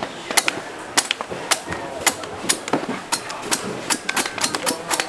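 Knife or machete chopping into a coconut: a dozen or so sharp blows, about two to three a second.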